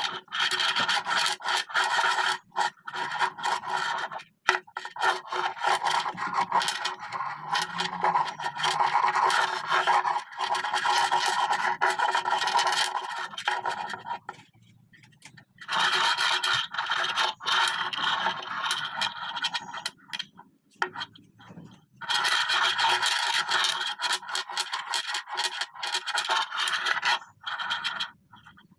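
Continuous rubbing and scraping from hands working a mass of small neodymium magnetic balls, in long stretches with brief breaks, the longest about halfway and two-thirds through.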